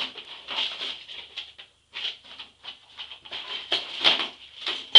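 Rummaging for a spare screw: an irregular run of small clicks, knocks and rattles of hard little objects being handled, with a sharp click at the very end.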